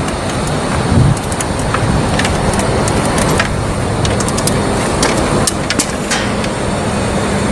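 Steady industrial-site background noise with a faint low hum, and scattered light clicks and knocks as a worker climbs a stepladder.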